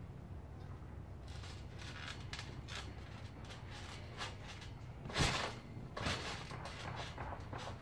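Backyard trampoline creaking and knocking under a bouncing child: a string of short spring and frame clicks, with one louder thud of a landing a little past halfway. A steady low rumble runs underneath.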